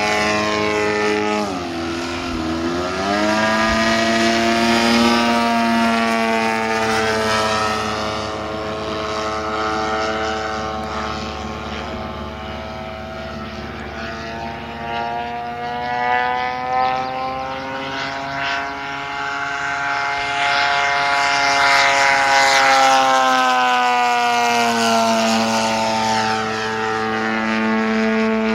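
Desert Aircraft DA-100 twin-cylinder two-stroke petrol engine and propeller of a giant-scale MX-2 aerobatic RC plane, running in flight as the throttle is worked. The note drops sharply about two seconds in, climbs back and holds high, then sags and rises again around twenty seconds in.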